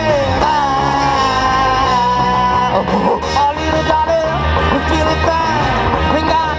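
Live rock band playing through a PA: electric guitars, bass guitar and drums, with a long lead melody line that bends and slides in pitch over a steady beat.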